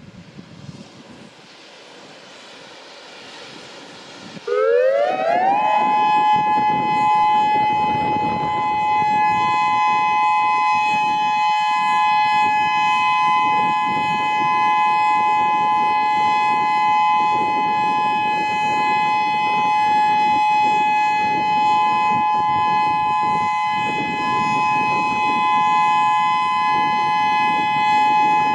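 Whelen WS-2000 electronic outdoor warning siren sounding a test: after a few seconds of faint hiss it sweeps quickly up in pitch about four and a half seconds in, then holds a loud, steady tone made of two close pitches.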